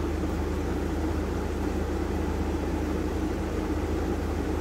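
Steady mechanical running noise with a low drone, typical of a window air conditioner running.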